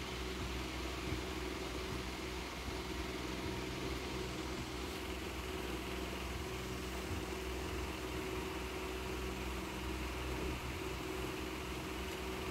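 A steady low mechanical hum that keeps the same pitch, like an idling engine or running machine.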